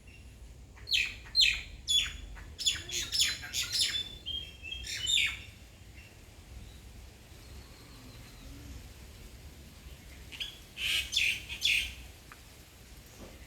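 Bird calls: a quick series of short, sharp chirps for several seconds, a pause, then a second brief burst of chirps near the end.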